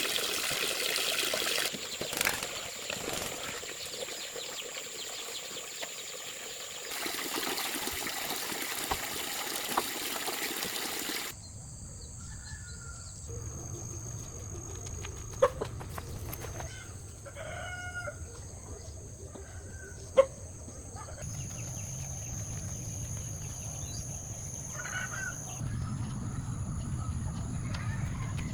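Chickens clucking and a rooster crowing, in a few short calls through the second half. Before that, a rushing noise with a steady high-pitched tone, and two sharp clicks between the calls.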